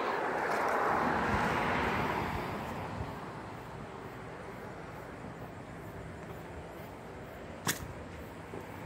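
A vehicle passing by: a noise that swells over the first second or so and fades away by about three seconds in. A single sharp click comes near the end.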